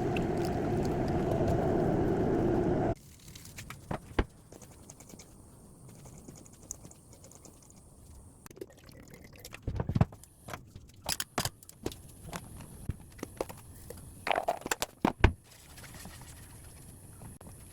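Kitchen sounds: a steady rushing noise stops suddenly about three seconds in, followed by scattered clinks, knocks and scrapes of cooking utensils and dishes, the loudest about ten and fifteen seconds in.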